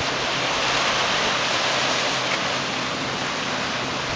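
Ocean surf breaking and washing over the rocks below the ledge: a steady rushing hiss.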